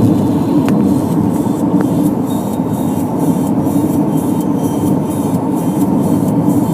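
Steady road and wind noise inside a moving car's cabin, a loud even rumble.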